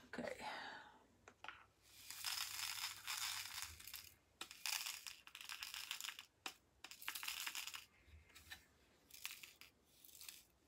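Faint rustling and crinkling of plastic with scattered small clicks, from hands working a diamond painting kit: the drills and their plastic containers being handled. It comes in short bursts of half a second to a second.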